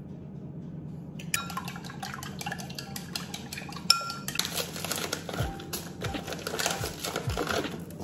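A metal spoon clinking against a glass jar and a ceramic bowl from about a second in, then wooden chopsticks stirring a mixture quickly in a ceramic bowl: a dense run of clinks and scrapes against the bowl that stops near the end.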